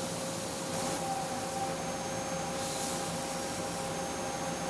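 Ohtori FTV-500HV machining center turning a large disc on its high-speed rotating table under flood coolant: a steady machine whir with two held tones over an even hiss of coolant spray, with a brief louder hiss a little before three seconds in.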